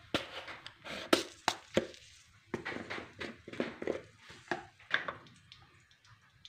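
Irregular sharp knocks and clicks, around a dozen, closest together in the first five seconds and sparser near the end.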